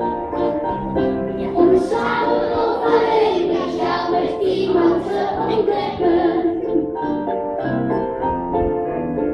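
A group of young children singing a song together, over an instrumental accompaniment.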